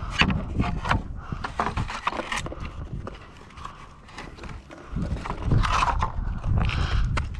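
A wooden plank being handled and shifted on asphalt: a run of irregular wooden knocks and scrapes, quieter for a second or so in the middle.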